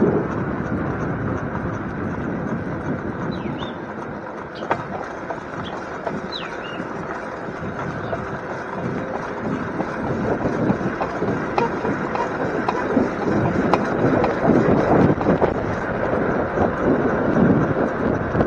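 Wind buffeting the microphone and the tyre noise of a bicycle rolling along a paved road, a steady rushing that grows a little louder in the second half. A few short bird chirps come through about three and six seconds in.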